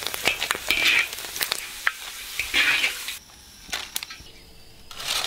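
Dried potato slices frying in a wok of oil, sizzling and crackling; about three seconds in the sizzle drops away, leaving a few scattered clicks.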